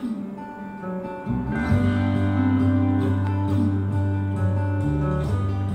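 Instrumental music with guitar, growing fuller as a steady bass line comes in about a second in.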